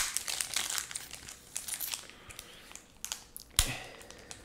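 Foil wrapper of an Upper Deck hockey card hobby pack being torn open and crinkled by hand. It starts with a sharp rip, crackles for a couple of seconds, and gives another sharp crackle about three and a half seconds in.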